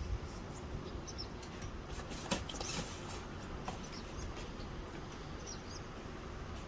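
Faint, short, high-pitched animal chirps repeating irregularly over a low steady outdoor rumble, with a couple of sharp clicks about two and a half seconds in.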